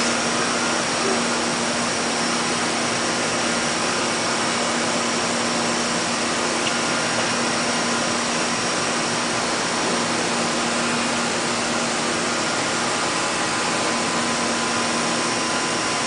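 LeBlond Makino KE55 CNC vertical milling machine running under power: a loud, steady mechanical whir with a fixed hum in it, unchanging in pitch and level.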